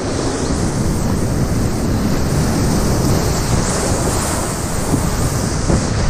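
Whitewater rapids rushing steadily and loudly around a kayak, with water splashing over its deck close to the microphone.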